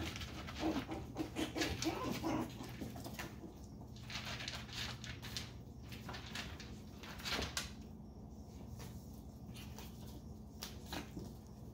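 Young Chihuahua puppies, about seven and a half weeks old, giving a quick run of small yips and whimpers in the first couple of seconds while they play, followed by scattered light clicks and scuffles.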